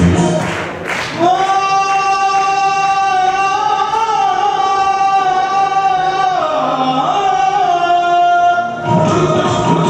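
Recorded dance music playing back loudly. The beat drops out for a long held sung note, a single pitch sustained for about seven seconds with a short dip in pitch near the end, and the full beat-driven music comes back about a second before the end.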